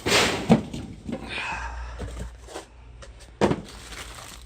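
A cardboard box being dragged and handled: a scrape, a thud about half a second in, more scraping and rubbing, then another thud near three and a half seconds in.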